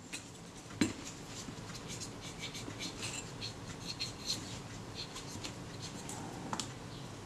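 Quick, irregular scratchy rubbing strokes of a small swab against the Kodak Retina IIIS's metal top cover, with one light click a little under a second in.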